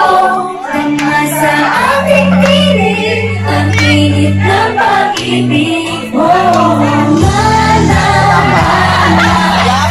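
A song: a female voice singing a melody over held low accompaniment notes.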